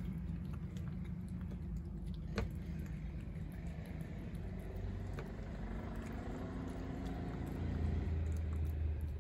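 A motorcycle engine running on a road, a low steady rumble that grows louder near the end as it passes. One sharp click about two and a half seconds in.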